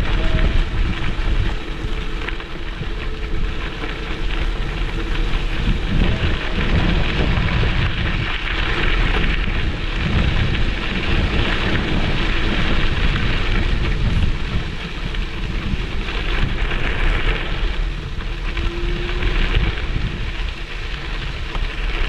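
Wind buffeting the microphone of a handlebar-mounted GoPro, a steady loud rushing with an uneven low rumble.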